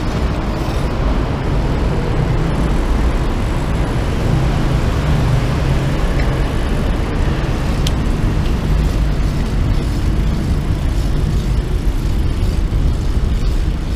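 Steady low rumbling noise while riding a bicycle: wind on the microphone mixed with road traffic, with one sharp click about eight seconds in.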